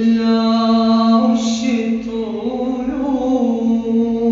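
A voice singing an Arabic nasheed, drawing out the word "al-'ush" (the nest) in long held notes, with a hissed "sh" about a second and a half in.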